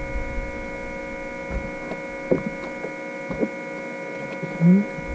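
Steady electric hum made of several even tones, with a few light knocks and a short rising squeak near the end.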